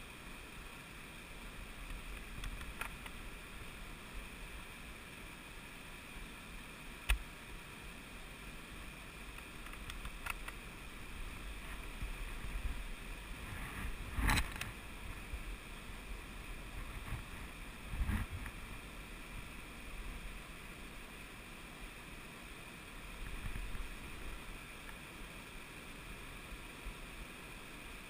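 Steady rushing of a small stream over rocks, with a few short knocks, the loudest about halfway through.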